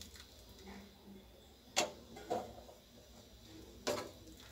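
A steel spoon clinking against a steel pan and a mesh strainer as boiled papaya cubes are scooped out of the water and drained, three sharp clinks, the loudest about two seconds in.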